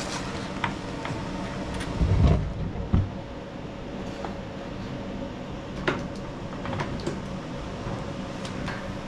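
Clunks and light clicks of a push mower and tools being handled while its excess oil is drained, with two dull thumps about two and three seconds in. A steady fan hum runs underneath.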